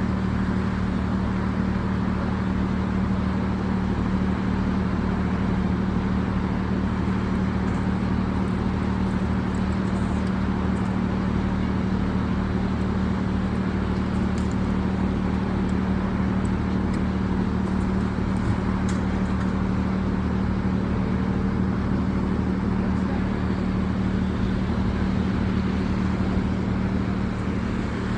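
LiuGong mini excavator's diesel engine running steadily, a constant hum, with a few faint ticks partway through.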